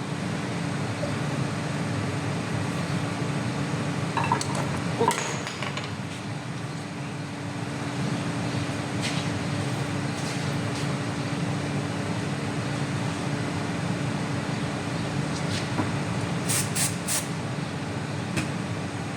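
Steady machine hum with one constant tone, over which new brake pads give a few light metallic clicks and clinks as they are set into the rear caliper carrier, including three quick clicks near the end.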